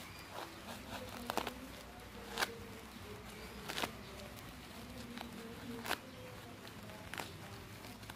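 Knife slitting and pulling apart the packing tape and plastic wrap of a parcel: scattered sharp crackles and snaps, about half a dozen spread over several seconds. A faint wavering buzz runs underneath.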